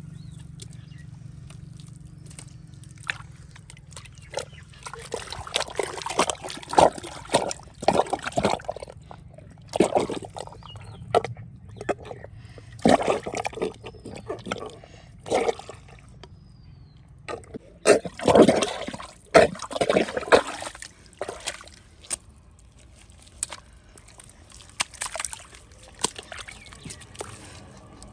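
Shallow muddy water sloshing and splashing in irregular bursts, busiest through the middle and loudest a little past two-thirds of the way in, with quieter trickling between.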